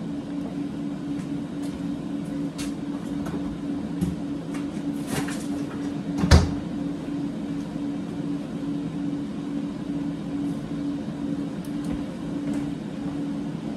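The bottom freezer drawer of a French-door refrigerator being opened and shut, with scattered clicks and rustles and one sharp thump about six seconds in, the loudest sound. A steady low kitchen-appliance hum runs underneath.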